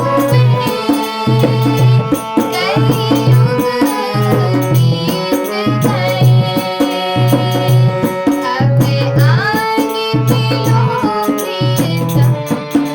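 Hindi devotional bhajan music: a steady tabla rhythm under a melodic line with sliding notes.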